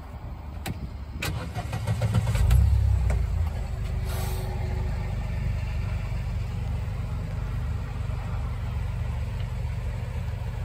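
Arctic Cat Prowler UTV engine started with the key: a couple of clicks, then the engine cranks and catches about two seconds in, revs briefly and settles into a steady idle.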